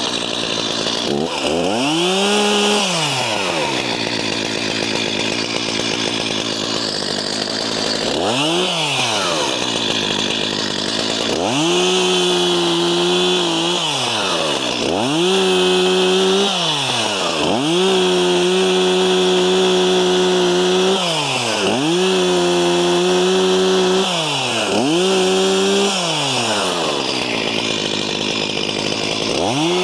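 Chainsaw idling, revved up briefly twice, then run at full throttle in a string of cuts a couple of seconds long, dropping back to idle between each. It is cutting up trees to clear a trail.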